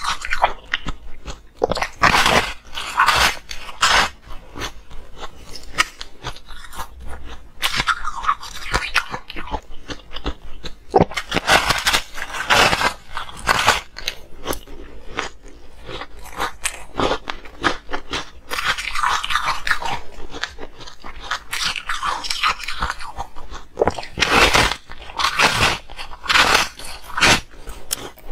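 Close-miked biting and chewing of a frozen block of coloured ice: a dense run of crisp crunches and crackles, with heavier bursts of bites every few seconds.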